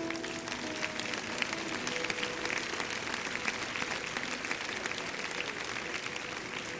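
Congregation applauding, many hands clapping in a dense, even patter. A few soft held musical notes fade out in the first couple of seconds.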